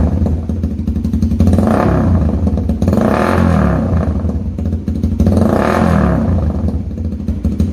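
Motorcycle engine idling, blipped three times: each rev climbs quickly and drops back to idle.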